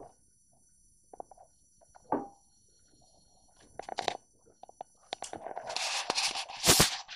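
Handling noise from a hand-held phone camera: scattered light knocks and scrapes, then a rustling scrape about five seconds in that grows to its loudest just before the end as the phone is moved.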